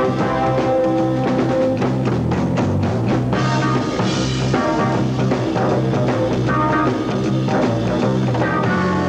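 Background rock music with a drum kit and sustained instrument notes, laid over the race footage.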